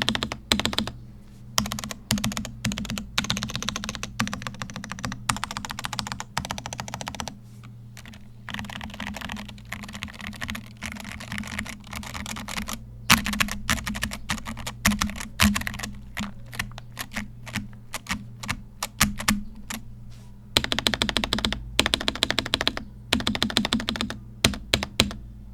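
Typing on a Noir Gear Timeless82 mechanical keyboard in stock form: fast runs of keystrokes in bursts of a few seconds, broken by short pauses.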